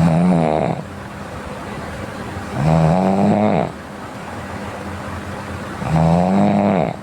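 A sleeping person snoring: three pitched snores about three seconds apart, each lasting about a second, the pitch rising slightly and then falling away.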